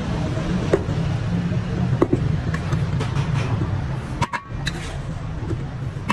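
A steady low mechanical rumble with a few sharp clinks of steel bowls against a steel pot.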